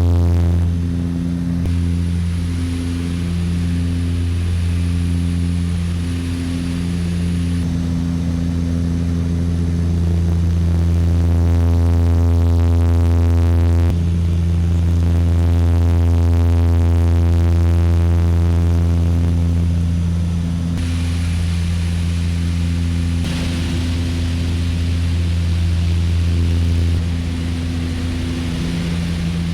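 Small propeller plane's engine running steadily, a constant deep drone with a few sudden shifts in tone.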